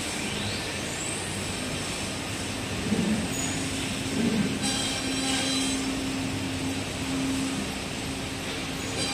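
Steady din of panel-production machinery and conveyors on a cabinet factory floor. A steady hum comes in about three seconds in, with a few louder knocks around then, and a faint rising whine near the start.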